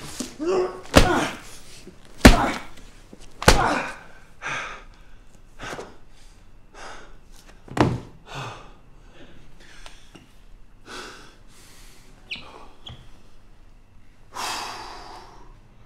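A fight on the floor: three heavy thuds land about a second apart, mixed with a man's grunts, and a lighter thud follows. Then come ragged heavy panting and gasps, ending in one long loud exhale.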